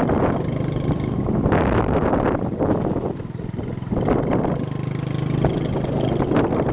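Motorbike engine running at a steady cruise, a low even hum, with rushing wind noise that swells and fades several times.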